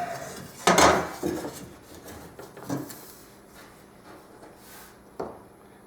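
Wooden sheet goods or a board being handled on the work table: a sharp knock about a second in, then sliding and scraping with a few lighter knocks, the last near the end.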